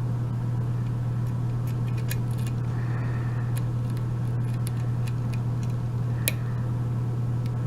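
Small metallic clicks of a lock pick working the pins inside a Sargent mortise lock cylinder, a few scattered ticks with a sharper one about six seconds in, over a steady low hum.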